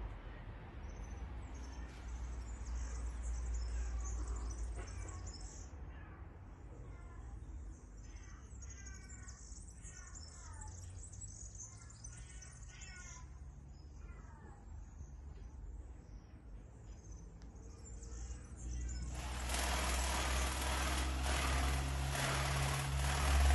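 Birds chirping and calling in short falling notes over a low outdoor rumble. From about 19 s in, a loud even rushing noise builds, as of a passing vehicle.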